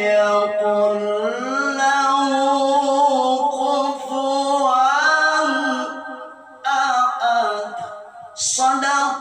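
Unaccompanied male voice in melodic Qur'anic recitation (tilawah), drawing out long ornamented notes that glide slowly up and down. It breaks briefly twice for breath in the last three seconds.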